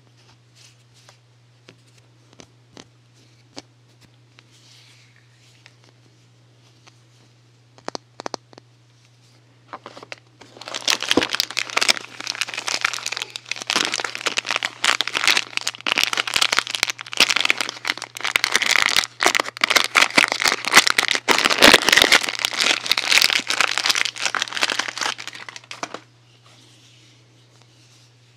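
Soap packaging being unwrapped by hand: a few faint ticks and rustles, then about fifteen seconds of loud, dense crinkling and tearing of the wrapping, which stops abruptly.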